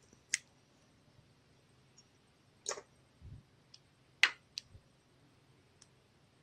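Putty slime being pressed and mixed by hand, giving a handful of scattered sharp clicks and pops, the loudest about four seconds in, with a couple of soft low thuds.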